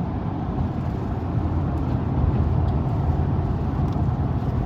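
Steady low rumble of road and engine noise from a vehicle cruising on the interstate.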